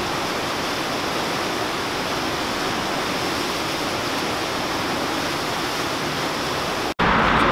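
Rushing whitewater of a river's standing surf wave, a steady, even noise of turbulent water; it cuts off abruptly near the end.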